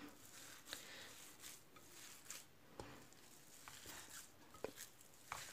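Faint, soft squishing of raw minced meat and tail fat being kneaded by hand in a glass bowl, with a few scattered quiet clicks.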